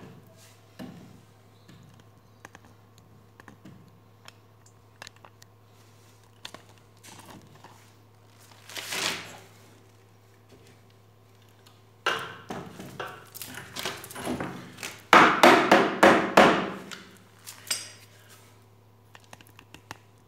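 Scattered knocks and clatter of hand work on a wooden chair frame, with a run of loud rapid knocks, about three a second, in the last third. A steady low hum runs underneath.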